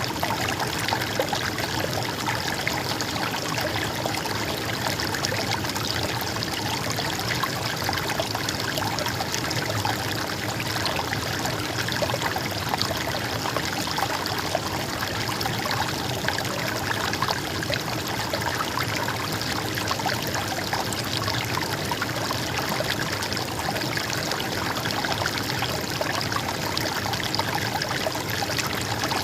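Stream water trickling and flowing steadily.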